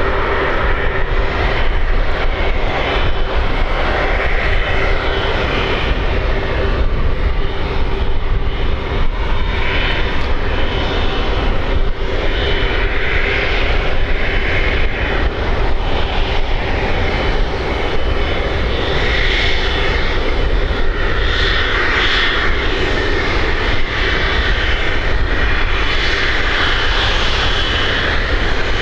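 Airbus Beluga XL's jet engines running at steady power, a loud, even roar with a deep low rumble and a faint steady tone through it.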